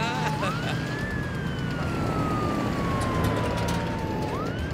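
Police siren wailing: the tone climbs quickly about half a second in, slides slowly down for about three seconds, then climbs again near the end. A low, steady rumble runs underneath.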